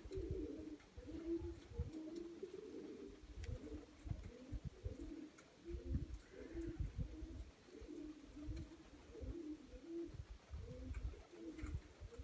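Several Nikolaev domestic pigeons cooing over and over in low, overlapping coos, with low rumbles and bumps underneath.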